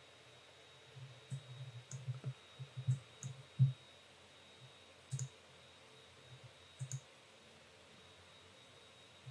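Scattered clicks and soft thumps of a computer mouse and keyboard being worked, bunched together in the first four seconds, then single clicks about five and seven seconds in.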